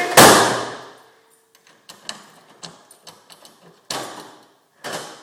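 Toolbox being handled: a loud bang right at the start, then small clicks and rattles as it is rummaged through, and two more sharp knocks near the end.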